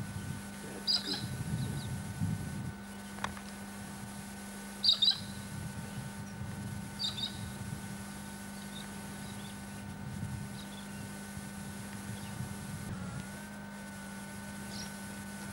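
Short, high bird chirps, a few scattered through, the loudest about one and five seconds in, over a steady hum.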